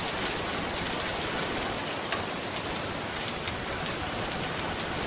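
Steady rain falling, an even hiss with a couple of faint ticks in the middle.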